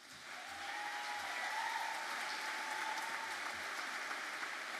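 A large auditorium audience applauding at the close of a speech. The applause swells within the first half second, then holds steady.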